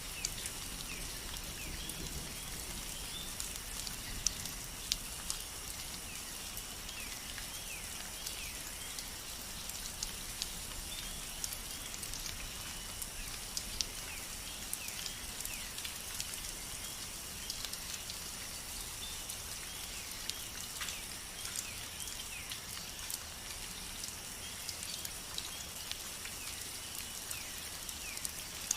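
Rain falling steadily, with many small drops ticking against a surface. Short, faint falling chirps sound throughout.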